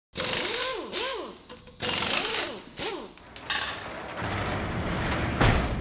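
Designed mechanical sound effects of an unlocking and a corrugated metal roller shutter rising: four short whirring bursts with whines that rise and fall in pitch, then a steadier rumbling run as the shutter goes up, ending in a heavy clunk near the end.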